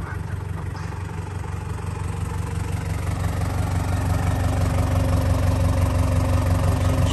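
Toyota 1KZ-TE 3.0-litre turbo diesel idling steadily, heard at the exhaust tailpipe. It gets louder from about two seconds in as the sound comes closer to the pipe.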